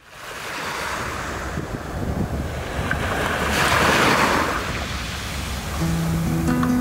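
Small waves breaking and washing up a gravelly beach, fading in at the start and swelling to their loudest about four seconds in. Music with held notes comes in near the end.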